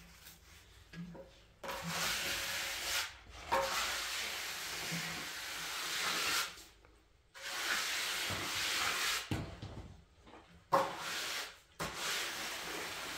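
A series of long rubbing strokes across a hard surface, about five of them, each lasting one to three seconds, with short pauses in between.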